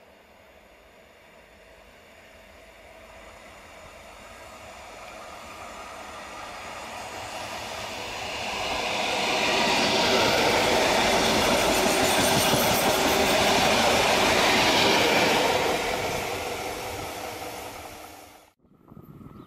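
HŽ low-floor multiple-unit passenger train approaching and passing close by on the rails. Its wheels and running gear grow steadily louder to a peak in the middle, with quick clicks over the rail joints, then fade as it moves away. The sound cuts off abruptly near the end.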